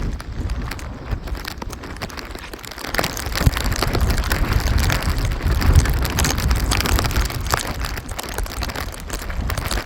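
Rain falling, with many small pattering drop hits, over a low rumble of wind buffeting the microphone that grows louder about three seconds in.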